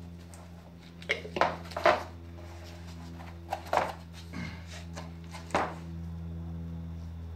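Gloved hands pressing and smoothing a glued fold of vinyl-coated mesh fabric on plywood, making several short scuffs and taps over a steady low hum.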